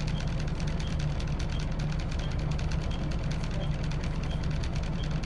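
Scania DC9 five-cylinder diesel of a Scania L94UB single-deck bus idling at a standstill, heard from inside the saloon as a steady low hum. A faint high tick repeats about every two-thirds of a second.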